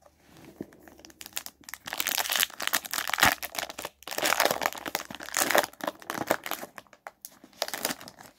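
Foil wrapper of a Panini Select baseball card pack being torn open and crinkled by hand, in dense runs of rustling and crackling from about two seconds in.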